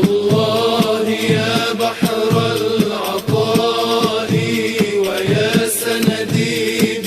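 Arabic devotional nasheed music: held, chanted voices over a steady percussive beat.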